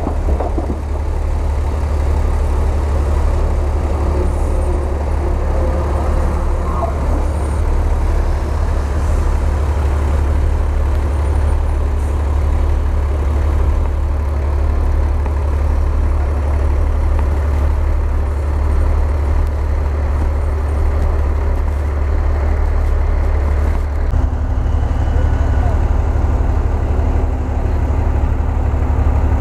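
Heavy diesel dump truck engine running with a steady deep hum while the truck tips a load of rock and soil from its raised bed. Near the end the sound changes abruptly to another loaded dump truck's diesel engine running.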